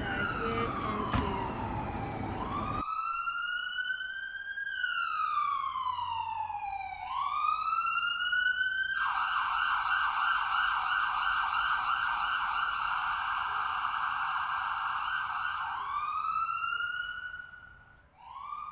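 Electronic emergency-vehicle siren: a slow wail rising and falling, switching to a fast yelp about nine seconds in, then back to a wail that fades out near the end. Street noise lies under it for the first few seconds until a sudden cut leaves the siren alone.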